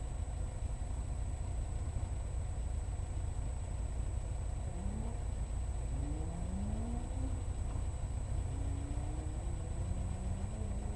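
A Ford 2.0 Zetec engine in a 1963 Austin Healey Sprite idling with a steady low rumble. From about halfway through, several short revs rise in pitch.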